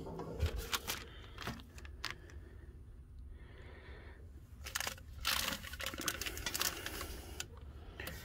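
Handling noise from packing material in a stainless steel mixer bowl: a paper manual and plastic wrapping rustle and crinkle. A few sharp clicks come in the first two seconds, and a longer stretch of crinkling starts about halfway through.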